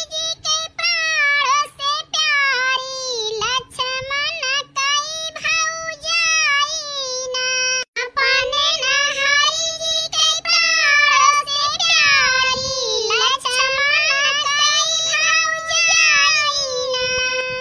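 A high-pitched voice singing a song alone, in long held, wavering notes with short breaks between phrases.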